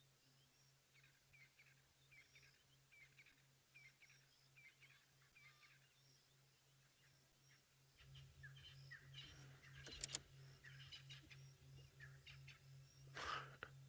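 Faint, repeated high chirping calls, about two a second, over a low pulsing hum that grows louder about eight seconds in. There is a sharp click about ten seconds in.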